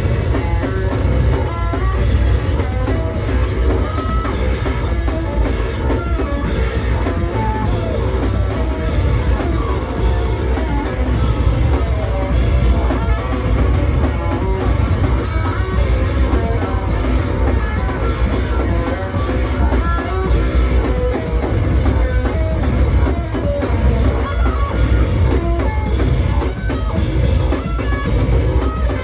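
Loud live noise rock from a bass guitar run through effects and a drum kit, playing without a break, with heavy low end under quick runs of notes.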